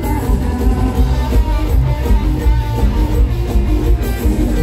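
A mor lam troupe's live band playing an instrumental passage through a loud PA: electric guitar over bass and a heavy, steady beat.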